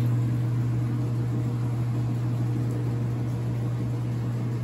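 Steady low hum of running laundromat machines, with an even noisy hiss over it.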